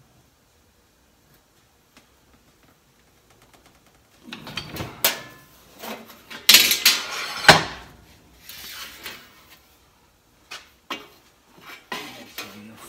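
Sheet steel rattling and clanking against a 3-in-1 sheet metal shear, brake and roll machine as the sheet is worked in the brake, with several sharp clanks in the middle. Later come a few lighter metal clicks and knocks as the brake's clamping area is handled.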